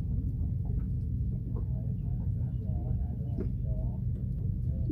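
A small fishing boat's engine idling with a steady low rumble.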